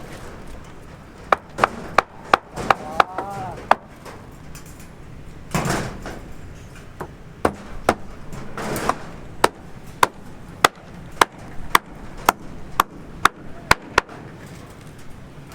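Hammer blows: a quick run of about eight sharp strikes, then after a pause a steadier run of about a dozen strikes at roughly two a second.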